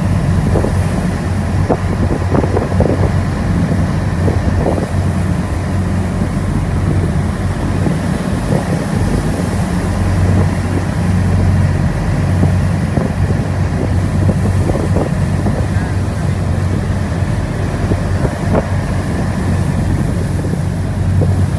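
An RNLI lifeboat's diesel engines run with a steady low hum under heavy wind buffeting the microphone and the rush of rough sea. Waves slap and spray hits the boat at scattered moments.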